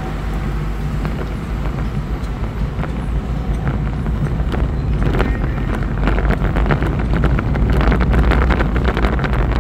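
Car driving slowly in city traffic, heard from inside the cabin: a steady low engine and road rumble, with a run of small knocks and rattles from about five seconds in.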